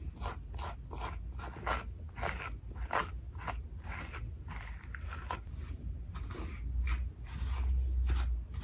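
A grooming brush drawn repeatedly through a dog's coat, short scratchy strokes about two or three a second.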